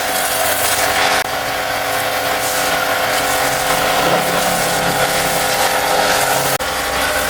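A cleaning machine running steadily, with a loud hiss over a steady hum. It breaks off for an instant near the end, and a lower rumble comes in after.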